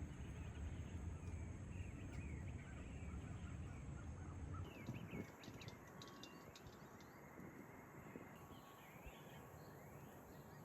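Small birds chirping and calling faintly outdoors, many short chirps. A low steady rumble runs underneath and stops about four and a half seconds in.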